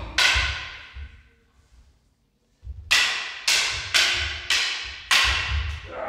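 Wooden bokken and longsword clashing in sparring: one sharp clack just after the start, then a quick run of about six strikes from about three seconds in, roughly two a second, each with a brief ring.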